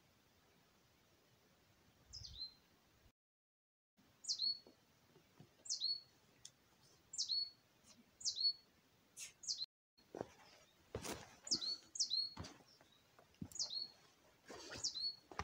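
A small songbird repeating a single high call that falls sharply in pitch, about every one to two seconds. In the second half, footsteps on the forest floor crunch and knock alongside it.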